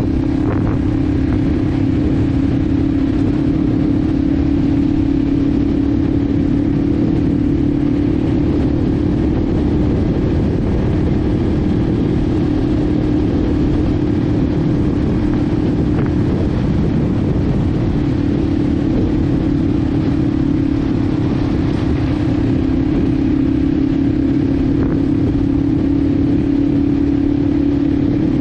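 Yamaha TW200's air-cooled 196cc single-cylinder four-stroke engine running at a steady, nearly constant pitch while the dirt bike cruises along a dirt trail.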